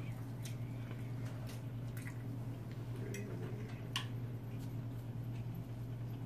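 Quiet eating sounds: a few scattered light clicks of forks and mouth sounds of chewing, the sharpest click about four seconds in, over a steady low hum.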